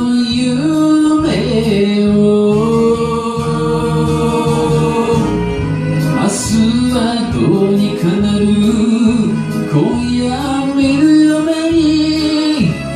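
Enka song: a man singing long held notes over a karaoke backing track, in a key six semitones below the original.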